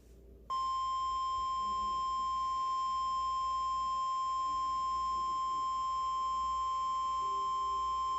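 NOAA Weather Radio 1050 Hz warning alarm tone: a single steady high tone that starts about half a second in and holds unchanged. It is the alert that announces a National Weather Service warning broadcast.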